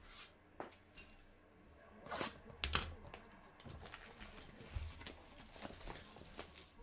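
A trading card pack's wrapper being torn open and crinkled by hand, with small handling clicks. The loudest tearing comes about two to three seconds in.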